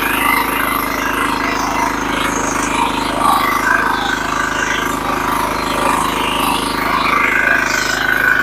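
Single-cylinder diesel engine of a walk-behind power weeder running steadily under load while its rotary tines till loose soil.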